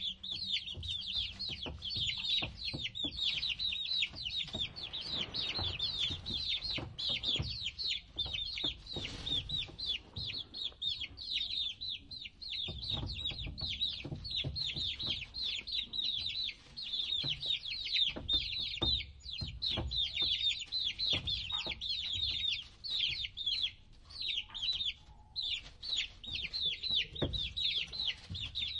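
Several baby chicks peeping continuously: a dense stream of short high-pitched peeps, several a second, with scattered light knocks underneath.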